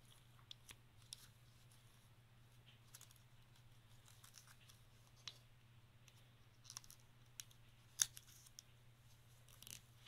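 Near silence with a few faint, scattered crinkles and clicks of a tiny square of origami paper being creased by hand while it is folded into a bird base, the sharpest about eight seconds in, over a steady low hum.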